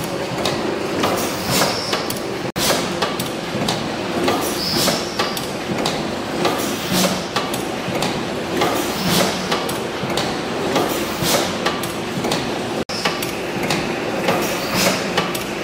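1914 Richard Hornsby twin-cylinder gas engine running, with a steady rhythm of mechanical clanking and knocks.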